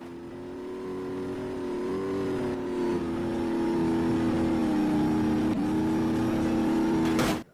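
A vehicle engine running at a steady pitch. It fades in over the first couple of seconds and cuts off suddenly near the end.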